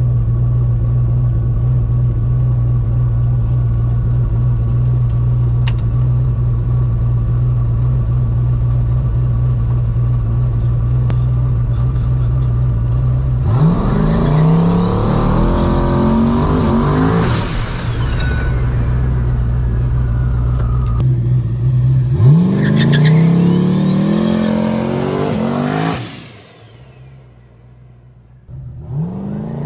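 Turbocharged 5.3-litre LS V8 drag car running with a steady drone, then launching hard about 13 seconds in and accelerating flat out, its pitch rising and dropping at each gear change. A second hard pull through the gears follows from about 22 seconds in and stops abruptly a few seconds later, and the engine starts revving up again near the end.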